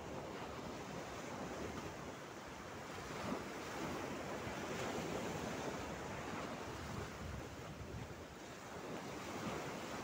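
Mediterranean Sea waves breaking and washing over a low, flat rock shelf: a steady wash of surf that swells about three seconds in, eases off near eight seconds and builds again at the end.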